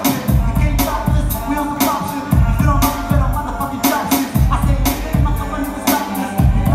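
Hip hop backing track playing loud, with deep bass hits, crisp hi-hats and a melodic synth line.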